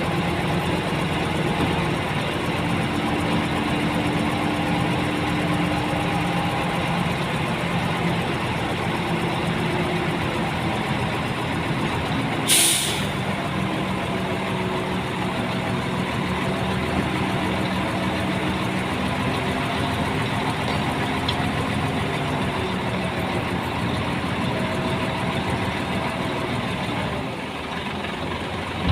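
Heavy diesel earthmoving machinery running steadily at a work site, the engine pitch drifting up and down as it works. There is one short, sharp hiss of air about halfway through.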